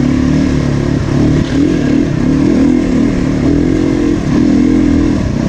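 Off-road motorcycle engine running under load, its note rising and falling repeatedly as the throttle is worked on and off along the trail.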